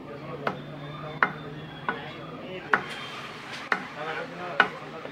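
Butcher's cleaver chopping goat head and bone on a wooden chopping block: six sharp chops, a little under one a second, the last ones the loudest. Faint voices are in the background.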